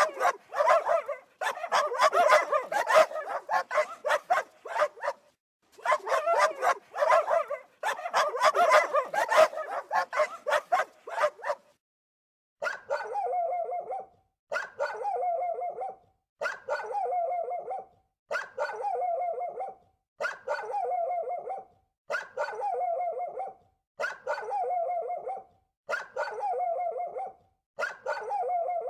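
Dogs barking: a rapid, dense run of barks for the first dozen seconds. Then, after a brief pause, one short bark-like call repeated about every second and a half, the same each time.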